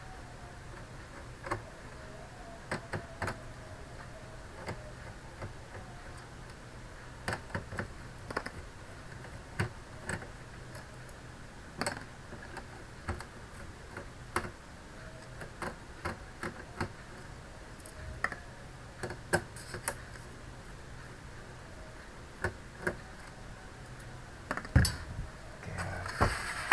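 Screwdriver removing small screws from the inside of an all-in-one PC: irregular light clicks and ticks of the tool and loosened screws, with a louder knock near the end, over a faint steady hum.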